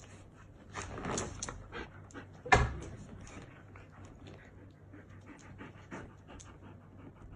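A dog panting in quick, short breaths, with one sudden loud knock about two and a half seconds in.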